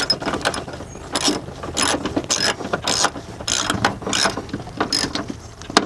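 Socket ratchet on a long extension clicking in short back-and-forth strokes, about two a second, as a battery hold-down bolt is run down.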